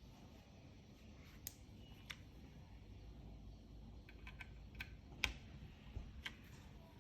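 Keys being pressed on a tenkeyless mechanical keyboard with MX Brown tactile switches, a polypropylene plate and GMK keycaps: scattered single keystrokes, two in the first half and a quick cluster of several in the second half.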